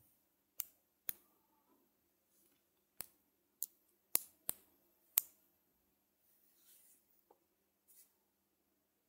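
Small neodymium magnet balls clicking as they snap together one by one: about seven sharp clicks at uneven intervals over the first five seconds, then a few faint, soft handling sounds.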